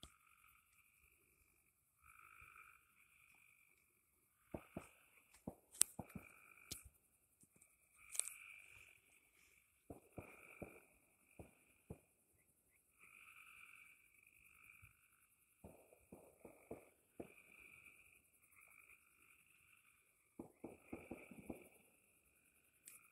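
Faint frog calls, repeated every second or so all the way through, with scattered faint pops and crackles.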